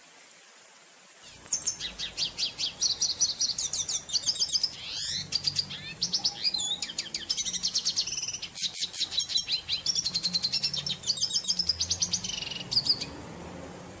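Red siskin singing a long, fast twittering song of rapid chirps and quick trills, which starts about a second in and stops about a second before the end.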